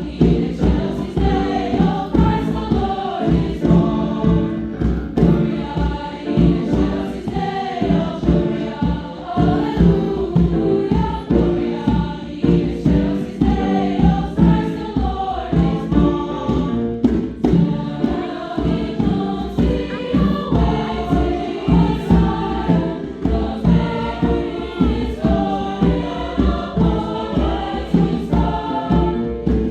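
A high school choir singing with instrumental accompaniment.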